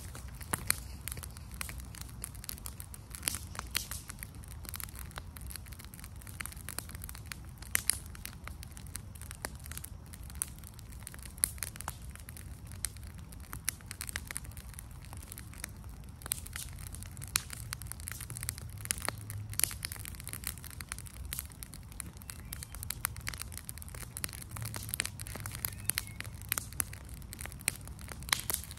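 Garbage and paper fire in a burn bin crackling, with many irregular sharp pops and snaps over a steady low rumble.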